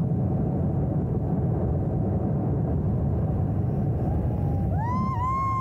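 Steady wind rushing over a helmet-mounted camera's microphone during parachute canopy flight. About four and a half seconds in, a high held note slides up, wavers once and holds.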